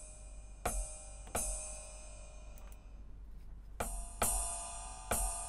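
Ride cymbal sample of an Aroma TDX-25 electronic drum kit, played from the bow zone of the ride pad: five hits, each ringing out in a long shimmering decay. The pitch setting of the ride bow sound is being stepped between hits.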